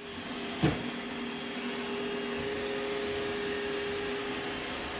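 Robot vacuum cleaner running with a steady motor whir, with one sharp knock a little over half a second in.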